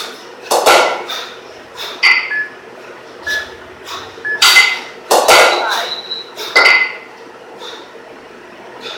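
Two 12 kg competition kettlebells clanking against each other, metal on metal, during two-arm long cycle reps: a handful of sharp knocks, each with a brief metallic ring, the loudest cluster about halfway through.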